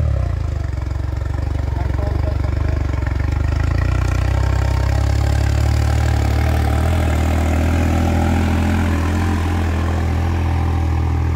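New Holland 3630 tractor's diesel engine running steadily under load as it pulls a nine-tine cultivator through ploughed soil. It grows a little louder as the tractor passes close, midway through.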